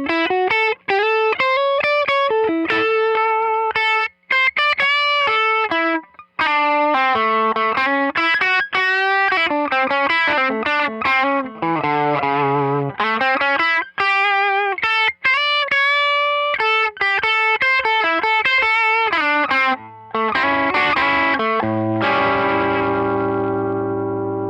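Gibson '58 Historic Les Paul electric guitar through a Tone King Imperial Mk II amp on a crunch setting, playing a lead line of single notes with bends. About 22 seconds in it ends on a chord that is left to ring and slowly fade.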